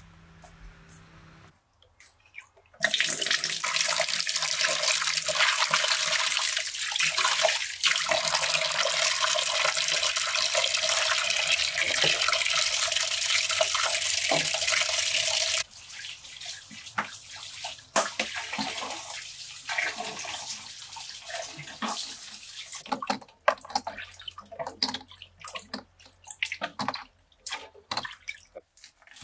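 Water running steadily from a tap for about thirteen seconds, then cut off suddenly, followed by scattered clicks and knocks.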